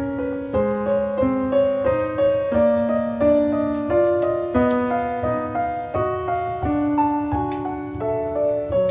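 Background piano music: a calm run of single notes and chords, each note struck and left to fade.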